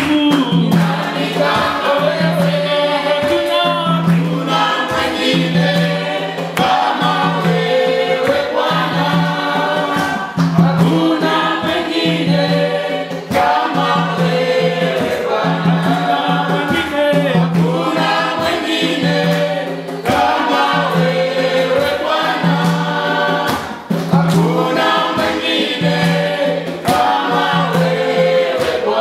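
A choir singing a gospel song with musical accompaniment, a low bass note pulsing steadily underneath.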